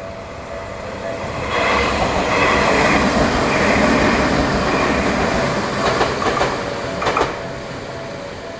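Tokyu Ikegami Line electric train passing over a level crossing. The crossing's warning bell tones sound at first and are drowned out as the train's running noise swells about a second and a half in and holds for several seconds. A few wheel clacks over the rail joints come near the end as it fades.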